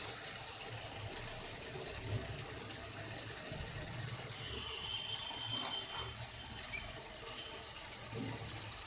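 Steady soft hiss of onion-tomato masala sizzling in a steel kadai on a gas stove, with a brief faint high tone about halfway through.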